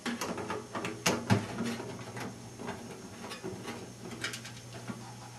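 Light, irregular metallic clicks and scrapes as small screws are backed out of a steel hard-drive cage and handled, over a faint low hum.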